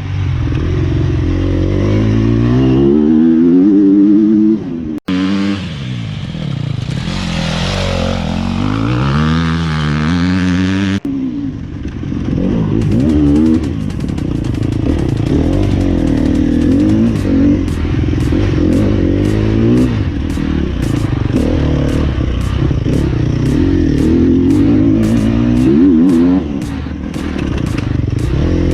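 Sherco 250 SEF single-cylinder four-stroke engine with an Akrapovic exhaust, revving up and down through the gears while being ridden, with sharp clicks from about halfway through. The sound breaks off and jumps twice, around 5 and 11 seconds in.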